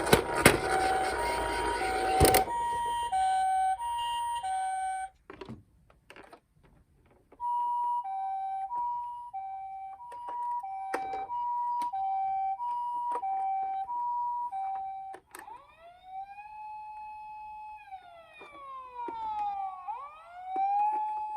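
Toy ambulance's electronic two-tone 'pee-po' siren, alternating a high and a low note about every two-thirds of a second. It cuts out about five seconds in, amid a few clicks, then starts again. Later it switches to a rising and falling wail.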